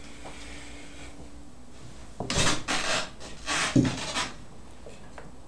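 A person sitting down close to the microphone: a run of short rustling scrapes from clothing and handling starting about two seconds in, with one dull thump among them.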